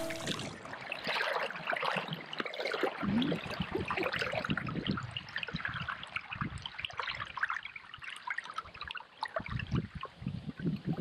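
Water trickling and dripping around a kayak paddle, with small irregular splashes as the blade dips into the water.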